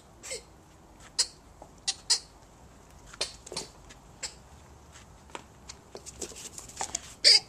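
A dog's squeaky ball toy squeaking as a bull terrier chews it: short, irregular squeaks, sparse at first, then several in quick succession near the end, the last the loudest.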